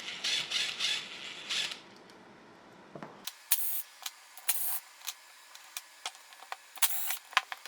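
Handling noises from the parts of a disassembled pneumatic nailer: scraping and rustling for the first couple of seconds, then scattered sharp clicks and three short, hissy scrapes.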